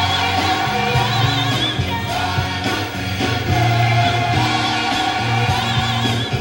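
Music with singing: a voice holds long, wavering notes over a steady bass line.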